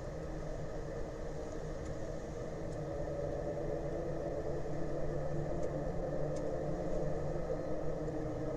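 A motor engine running steadily: a low hum with a rumble beneath it, growing slowly louder.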